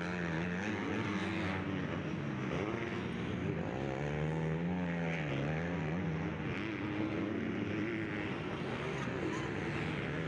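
Several 250-class motocross bike engines racing at once, their pitch rising and falling as the riders work the throttle over the track.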